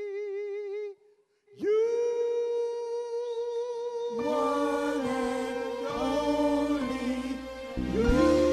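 A vocal group singing live: a lead voice holds a high note with vibrato, breaks off for a moment about a second in, then takes a new long note. Lower harmony voices join at about four seconds, and the band comes in with a fuller, louder chord near the end.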